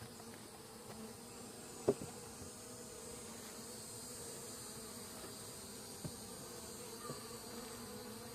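Honeybees buzzing steadily in an opened hive of a weak split colony with few bees, with a few light clicks.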